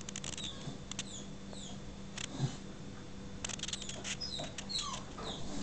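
Rubber squeaky dog toy giving several short, high squeaks that slide down in pitch, with scattered sharp clicks between them.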